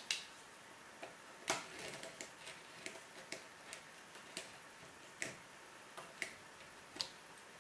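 Utility knife blade scoring around a bamboo skewer: a string of faint, irregular clicks as the skewer is turned against the blade.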